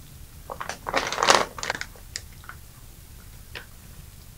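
Plastic crinkling and rustling as a gloved hand handles mustard-leaf kimchi on a plate, with a dense burst about a second in and a few light ticks after.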